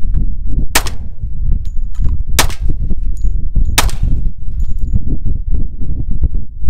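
Three pistol shots, about a second and a half apart, from a semi-automatic handgun. A heavy low rumble of wind buffeting the microphone runs underneath.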